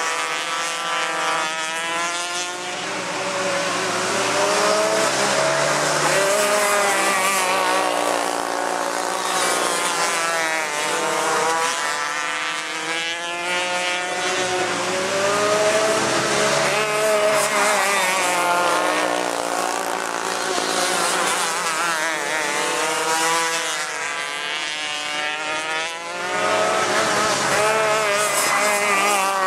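Several 125cc two-stroke outlaw kart engines racing together, each one's pitch rising and falling over and over as the karts accelerate and back off through the turns, the tones overlapping as they pass.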